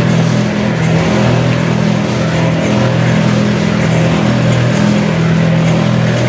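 Screw-type oil expeller running under load while pressing seed, a loud steady mechanical drone with a low hum, as pressed oil cake is pushed out of the cake outlet.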